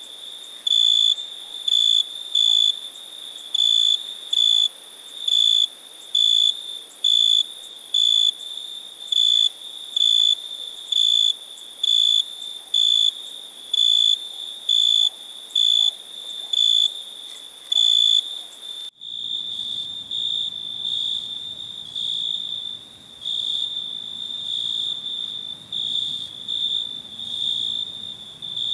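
Crickets chirping in an even rhythm, about one high-pitched chirp a second. About two-thirds of the way in, the sound cuts abruptly to a different cricket recording: an almost unbroken, uneven trill over a low background rumble.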